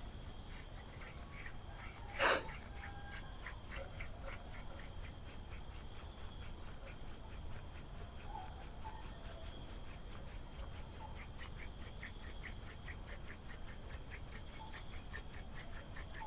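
Hand drill: a short wooden spindle spun between the palms on a small wooden fireboard, grinding with a rhythmic scratchy rub, about three or four strokes a second, as friction dust builds toward smoke. A steady high insect drone runs underneath, and a single louder sound comes about two seconds in.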